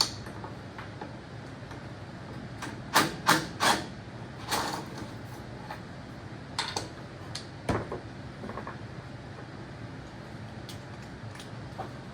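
A few sharp knocks and clanks of hand tools on the tractor's metal, bunched together about three to five seconds in, with a few more scattered after, over a low steady background hum.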